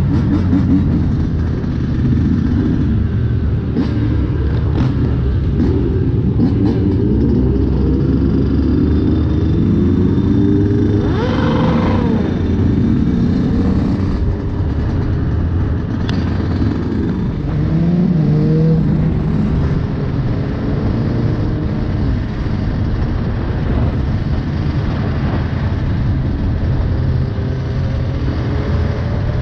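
Yamaha YZ125 two-stroke dirt bike engine running and revving up and down under the rider, mixed with the engines of other motorcycles riding alongside. The pitch of several engines rises and falls throughout, with one sharp rising rev about eleven seconds in.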